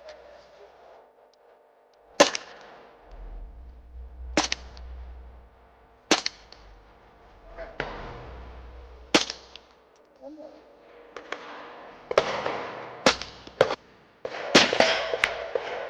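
Gunshots on an open range, with a short echo after each: single shots a couple of seconds apart at first, then more shots in quicker succession near the end.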